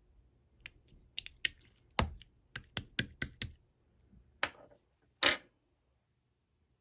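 A quick series of sharp clicks and taps, about a dozen over three seconds, then a louder short scraping click about five seconds in.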